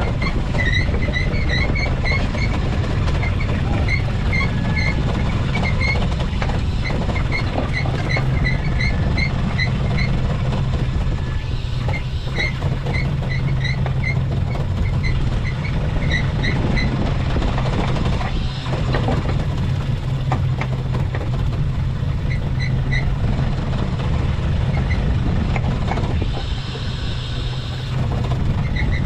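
A small fishing boat's engine drones steadily under way while a pot line is hauled aboard. Over it come runs of short, high squeaks, several a second in quick groups, with brief pauses between the runs.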